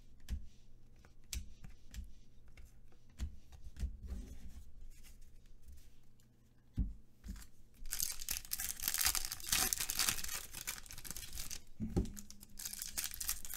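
Foil card-pack wrappers crinkling and tearing as football card packs are ripped open, a dense crackle that starts about eight seconds in. Before it, faint clicks and taps of cards being handled.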